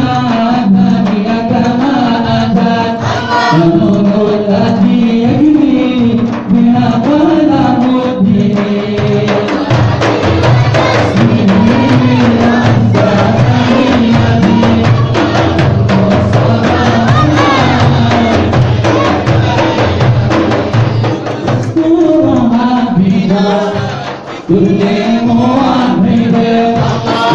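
Men singing a devotional Arabic nasheed to a group of hand-struck frame drums beating a dense, steady rhythm. The drumming is heaviest through the middle and eases briefly near the end.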